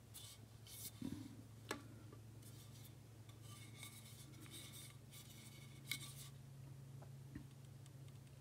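Faint handling noise of the metal detector's parts and packaging: a few light clicks and soft rustles over a steady low hum.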